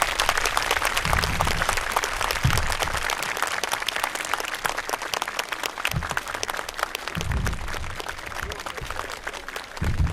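Crowd of spectators applauding, loudest at the start and easing off slightly.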